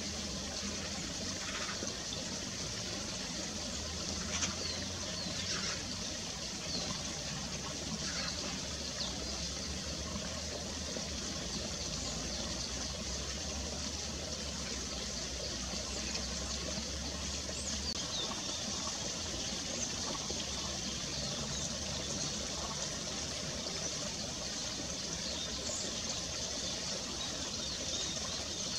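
Steady trickle of shallow stream water, with a low rumble under it for the first two-thirds and a few faint, brief high calls.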